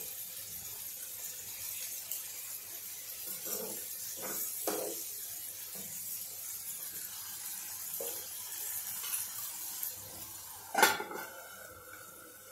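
A steel spoon stirs and scrapes a watery eggplant curry in a non-stick pan over a steady sizzle, in irregular strokes. About 11 seconds in, a stainless steel lid is set down on the pan with a loud clang that rings briefly.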